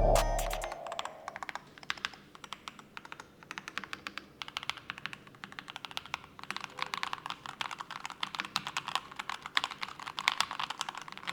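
Typing on a Keychron K10 Max full-size mechanical keyboard with thick internal foam: a quick, irregular patter of keystroke clicks, sparse at first and coming in faster runs from about a third of the way in.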